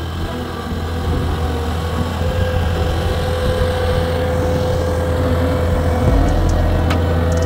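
Cat 289D3 compact track loader running, its diesel engine growing louder as the machine drives closer. A steady whine joins for a few seconds in the middle, and a few sharp clicks come near the end.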